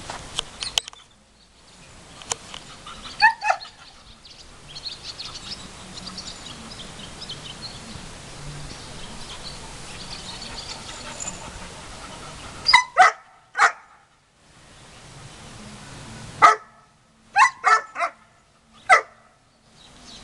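Young German Shepherd dog barking in short, sharp single barks: two about three seconds in, three more about two-thirds of the way through, then five in quick succession near the end.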